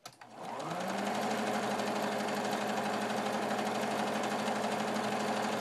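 Electric sewing machine zigzag-stitching along the raw seam edges of a small cotton muslin bag. The motor speeds up over the first second, then runs steadily with fast, even needle strokes.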